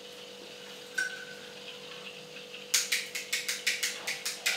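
A table lamp's switch clicked on and off rapidly, about five clicks a second, starting a little past halfway, to make the light flicker. A faint steady hum runs underneath.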